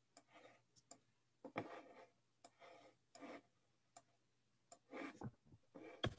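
Near silence with faint, irregular clicks and soft rustles over a low hum: computer mouse and keyboard clicks picked up by a video-call microphone while slides are being set up.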